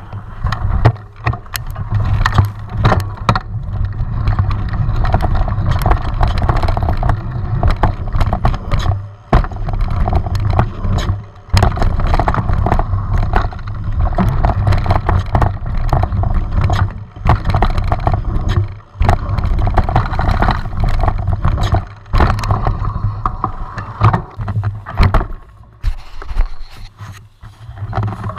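Mountain bike ridden fast along a dirt trail, heard through a body-mounted action camera: a loud steady rush of wind and tyre rumble with frequent sharp rattles and knocks from the bike over bumps, dropping away briefly a few times.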